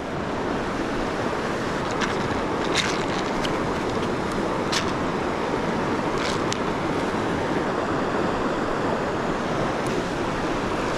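Fast river water rushing over boulders in a steady wash, with a few faint, light clicks as split shot is taken from its dispenser and fitted to the line.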